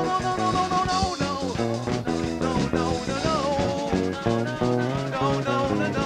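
Live rock band playing a fast song, with electric guitar, bass and drum kit.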